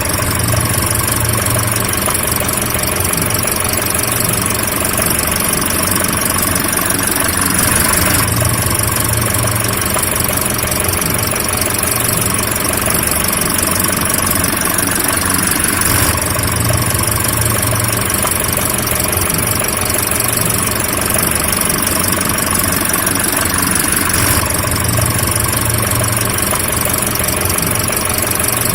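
A car engine idling steadily with no revving. It is a short recording looped, starting over about every eight seconds with a slight change in tone at each join.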